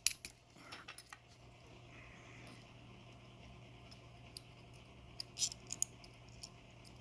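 Light metallic clicks and taps of small lock pins, springs and tweezers being handled as a Medeco padlock core is taken apart. There are a few clicks about a second in and a quick cluster a little past five seconds, over a low steady hum.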